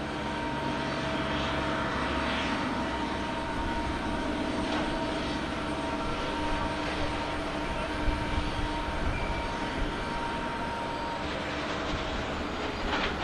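The four jet engines of a Boeing 747-400 running at low taxi power: a steady rushing noise with several held whining tones, the highest of which fades out near the end.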